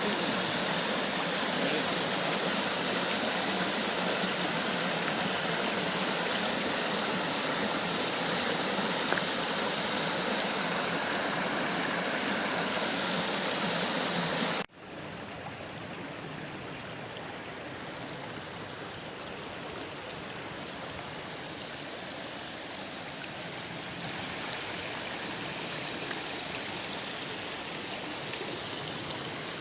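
Steady rushing of falling water from a waterfall. About halfway through it cuts abruptly to a quieter, softer rush of water.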